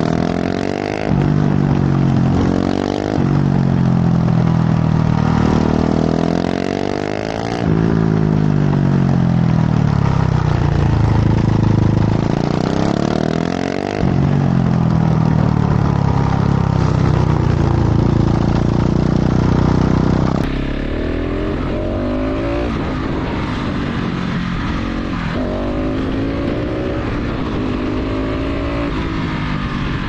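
KTM 690 SMC R's single-cylinder engine breathing through a full LeoVince exhaust, revving up and down repeatedly as the bike accelerates and slows. In the last third it gets quieter, with shorter swells in revs.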